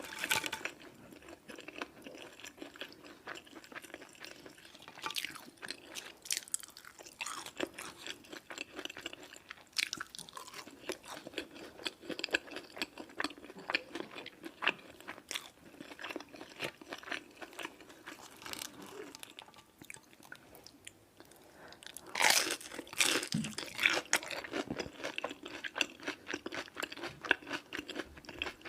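A person chewing and crunching crunchy food close to the microphone, with wet mouth clicks throughout. About twenty-two seconds in, a louder run of crunchy bites lasts a few seconds.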